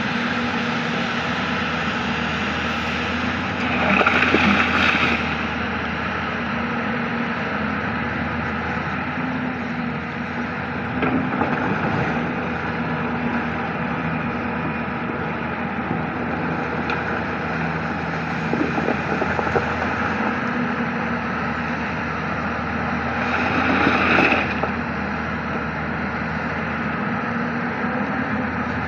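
Hyundai 220-9S hydraulic excavator running steadily as it works. The engine and hydraulics swell louder under load twice, about four seconds in and near the end, with a few light knocks in between.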